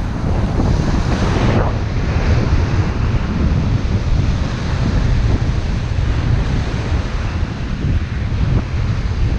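Wind buffeting the microphone with a low rumble, over surf washing against the shore. A brighter, hissing surge of water fills the first second and a half, then ends abruptly.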